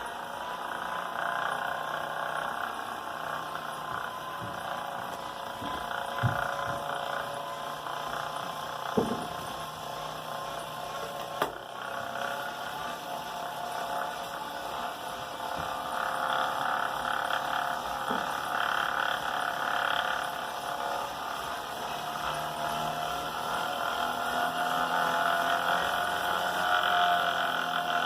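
Wahoo Kickr Snap wheel-on smart trainer spinning, the tyre on the roller giving a steady whine that rises and grows louder in the second half. A few sharp knocks sound in the first half: the knocking noise the trainer has developed.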